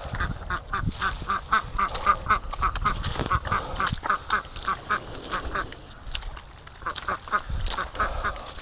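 A flock of Pekin ducks quacking: a quick run of short quacks, about four or five a second, thinning out about six seconds in.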